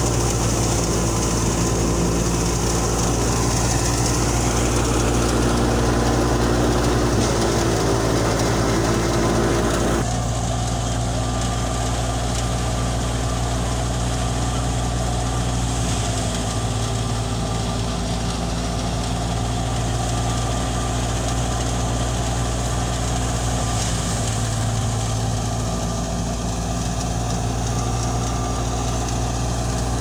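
Tractor-driven wheat thresher running steadily: the Belarus 510 tractor's diesel engine drones under load together with the whirring threshing drum, a constant mechanical hum. The sound shifts abruptly about a third of the way through, then carries on steady.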